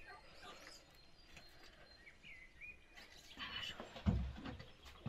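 Mostly quiet, with a few faint bird chirps about two seconds in. Near the end come rustling and low bumps as someone comes in through the shed door.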